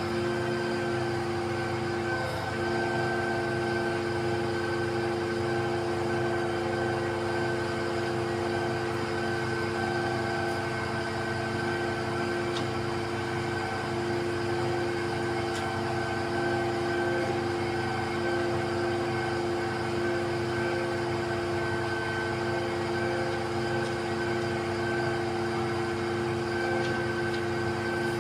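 XCMG truck-mounted concrete pump running steadily: an even engine drone with several held tones and no break or change.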